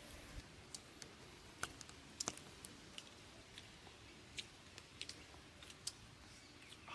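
Faint, irregular light clicks and crackles of fingers picking through a pile of dry ants on a banana leaf, the loudest a quick pair about two seconds in.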